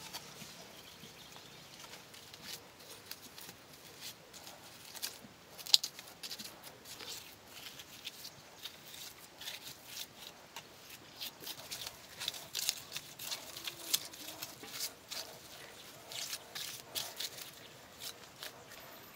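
Small trowel spreading and scraping wet mud plaster over a stick-lattice roof: irregular soft scrapes, pats and clicks, with one sharper click about six seconds in.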